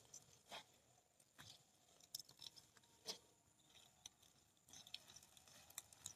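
Faint, scattered crackles and rustles of spinach plants being pulled up by hand from the soil, leaves brushing and stems snapping close to the microphone.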